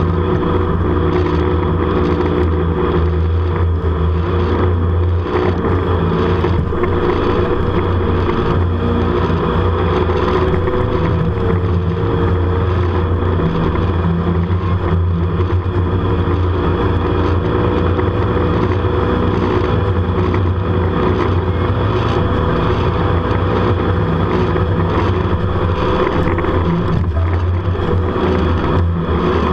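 Jet boat's engine running hard at speed, a steady drone that shifts a little in pitch through the turns, over the rush of water spray and wind on the microphone.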